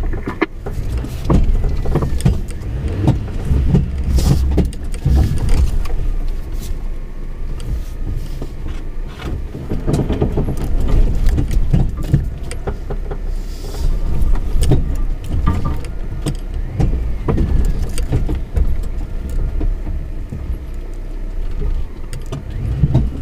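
Suzuki Jimny 4x4 being driven along a rough unsurfaced lane: a steady rumble from the vehicle with many short knocks and rattles as it bumps over the ground.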